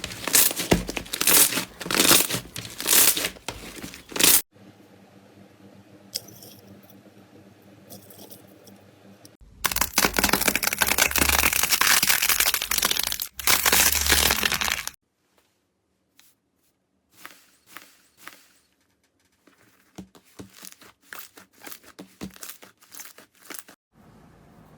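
Crunchy slime being squeezed and pressed by hand, crackling and popping densely, in separate bursts: loud at the start and again from about ten seconds in, with scattered single pops later and a quiet stretch in between.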